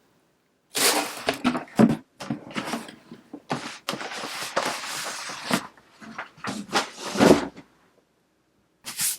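Packaging being handled and unwrapped: loud rustling and crinkling in irregular bursts with small knocks, going quiet about a second before a last short rustle near the end.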